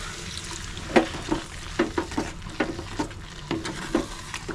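A spoon stirring and scraping in a steel kadhai, knocking against the pan two or three times a second from about a second in, over the steady sizzle of a methi gravy cooking with a little water just added.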